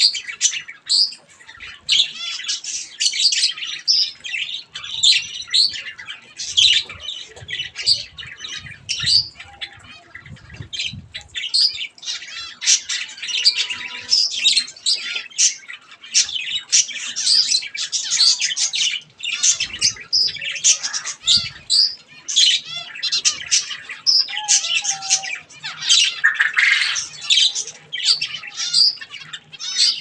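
Mixed aviary flock of budgerigars and zebra finches chattering and calling: many short, high-pitched calls overlapping continuously with no pause.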